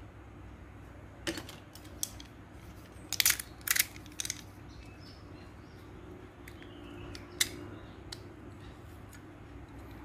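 Small sharp clicks and faint scraping of a utility knife blade working at the back of an air-conditioner remote's LCD panel, to pry off its backing; the clicks come scattered, bunched about three to four seconds in, with one more near seven seconds.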